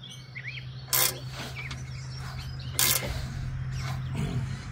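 Two sharp metal clacks about two seconds apart from a hand wrench turning an exhaust expander tool inside the exhaust pipe, stretching the pipe end to fit. A steady low hum runs underneath, and birds chirp faintly near the start.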